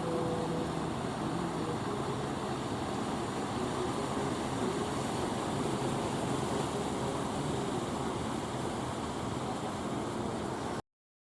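Steady rushing noise of ocean surf, with a low hum in the first few seconds; it cuts off abruptly near the end.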